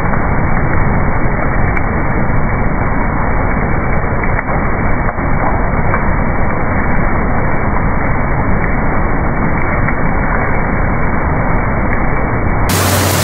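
A batch of dry, crunchy fried snack pieces tumbling out of a rotating drum onto a steel chute, making a dense, steady crackling rattle over the machine's running noise. Near the end a low steady hum comes in.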